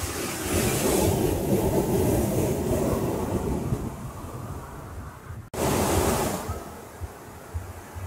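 Ocean surf on a sandy beach: a wave breaks and washes up the shore in a swelling rush of noise that fades over a few seconds. After a brief sudden dropout about five and a half seconds in, a second short rush follows, then a lower, steady wash.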